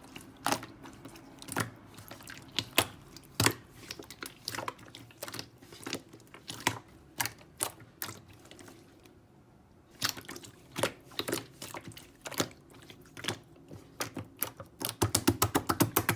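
Irregular sharp clicks and taps at an uneven pace. They stop for about a second around nine seconds in, and come in a quick run near the end.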